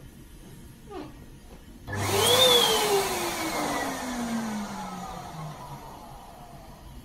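Electric balloon air pump switched on about two seconds in, blowing air into a latex balloon on its hose nozzle. Its motor whine rises quickly, then falls steadily in pitch and gets quieter.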